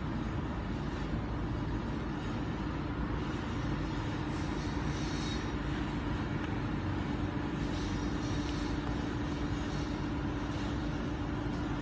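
Steady mechanical hum over a low rumble, with one constant tone and no breaks.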